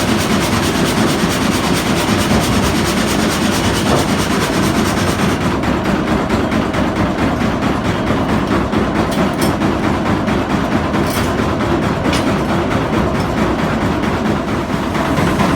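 Old Bolinder farm sawmill running: a loud, steady, fast mechanical clatter from the frame saw and its drive, the hiss on top easing about five seconds in.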